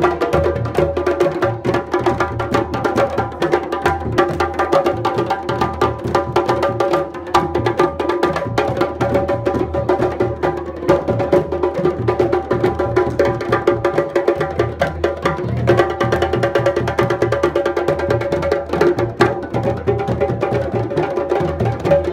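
Several djembe hand drums played together by hand in a fast, unbroken rhythm, their heads ringing between strokes.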